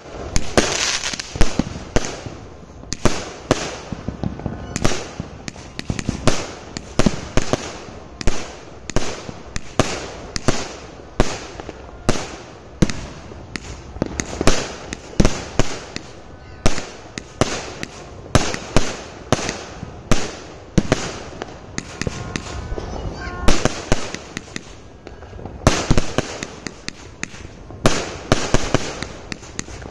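Dragon Fireworks 'Business is Booming' repeater cake firing, one loud bang after another at about two a second as shot after shot launches and bursts.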